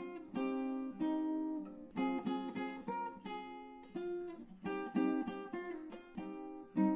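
Background music: acoustic guitar, plucked notes and strummed chords.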